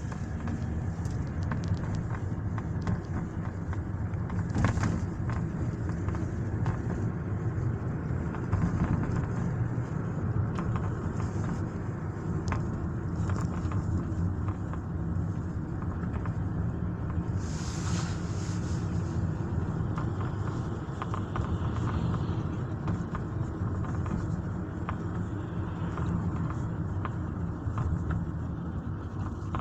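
Hyundai i40 dashboard panel knocking in short, irregular clicks over the steady rumble of the moving car, heard from inside the cabin.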